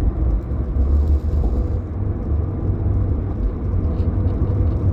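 Steady low rumble of background noise, with a faint hiss coming in briefly about a second in.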